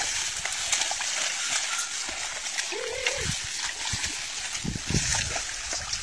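Mud and water splashing as a pair of cattle drag a wooden plough through a flooded rice paddy, with a short rising-and-falling call about three seconds in.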